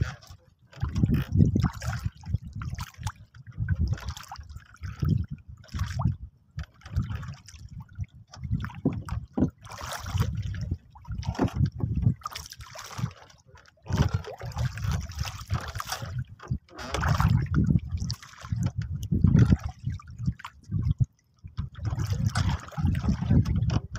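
Water lapping and trickling against a small wooden boat's hull, with wind buffeting the microphone in uneven gusts.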